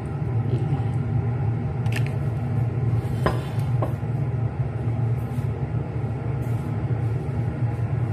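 A steady low hum throughout, with a few light clicks about two and three seconds in, like a spoon touching a ceramic serving bowl.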